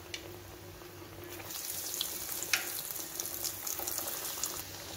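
Breadcrumb-coated potato triangles sizzling and crackling as they deep-fry in hot oil. The sizzle builds up about a second and a half in.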